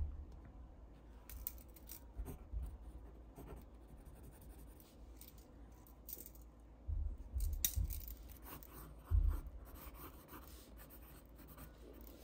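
Hands handling a sheet of drawing paper on a desk: light rustles and scratches with a few dull knocks, the loudest about seven to nine seconds in.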